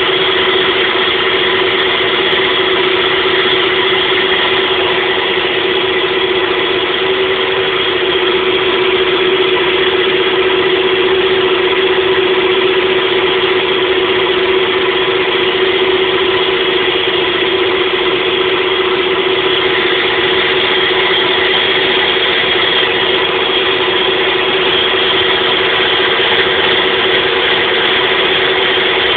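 CNC machine running with a loud, steady mechanical whine that holds one pitch throughout.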